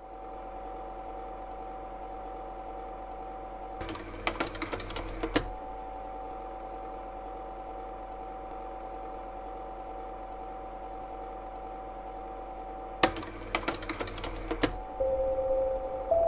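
A steady low drone of held tones, broken twice by short runs of rapid mechanical clicking, about four seconds in and again about thirteen seconds in. Near the end a new, higher pair of held tones comes in.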